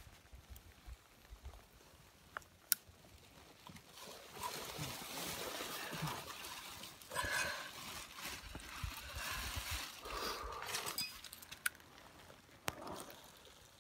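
Hikers' footsteps and clothing rustling on a trail, faint at first, then swelling from about four seconds in, with a few sharp clicks.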